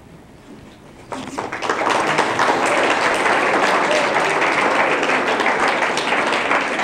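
Audience applauding: the clapping starts about a second in, builds quickly and keeps up steadily.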